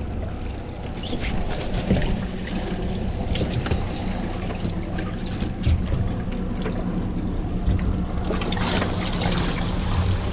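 Skiff's outboard motor running steadily at slow trolling speed, a low even hum, under wind and water noise with a few light clicks; the hiss grows about eight seconds in.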